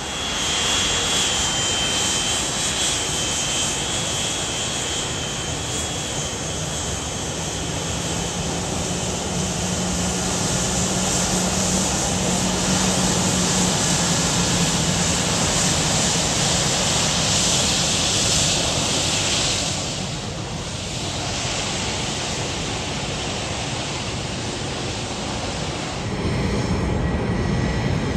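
Boeing 757-200's twin turbofan engines at taxi power as the jet rolls past close by: a steady whine and rush, the high hiss loudest about two-thirds of the way through. Near the end a deeper rumble comes in.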